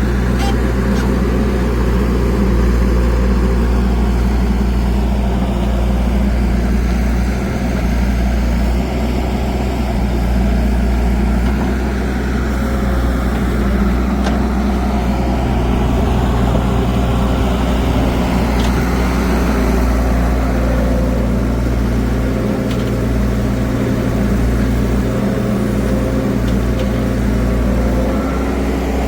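Heavy diesel engine running steadily, a deep even hum with no pause or big change in speed.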